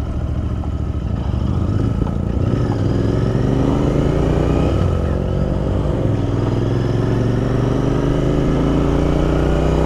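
Royal Enfield Interceptor 650's parallel-twin engine running under way, its pitch climbing gradually from a few seconds in as the motorcycle accelerates, over a steady rush of wind and road noise.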